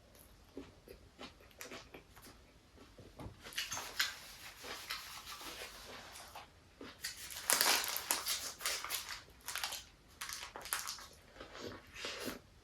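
Close-miked eating of a Burger King burger: irregular crunchy bites and chewing, with two busier stretches of noisy crunching in the middle.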